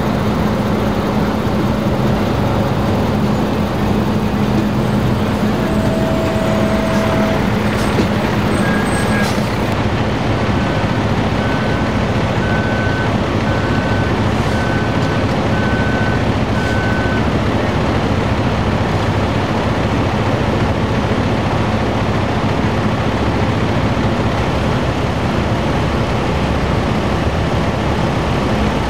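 A heavy engine running steadily with a constant low hum. From about ten to seventeen seconds in, a string of short high beeps sounds, a little under a second apart.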